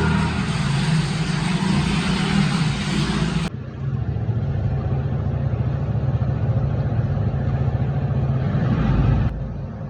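Motorcycle engine running steadily while riding, with rushing wind and road noise over it. The sound changes abruptly about three and a half seconds in and again near the end.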